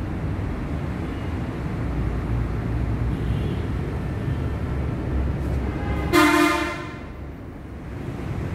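One short horn toot, about two-thirds of a second long, over a steady low rumble.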